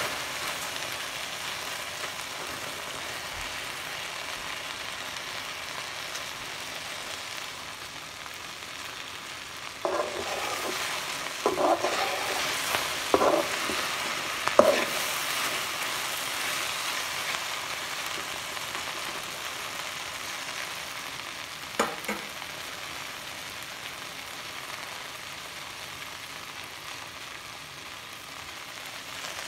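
Okra (ladies' fingers) dry-frying in a pan with a steady sizzling hiss. Around the middle comes a run of about five stirring knocks and scrapes against the pan, and one more a little later.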